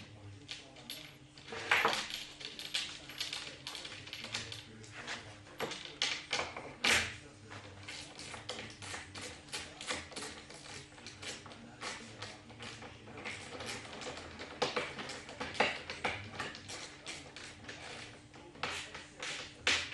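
Irregular clicks and knocks of metal hardware being fitted by hand at the edge of a wooden table top, a few louder knocks among many light ones, over a steady low hum.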